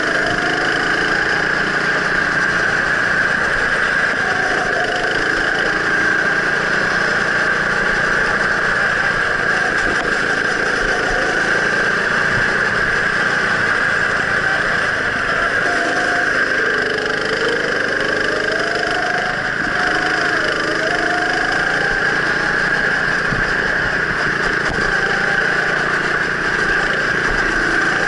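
Go-kart engine running close under the seat, its pitch rising and falling as the throttle is worked through the corners.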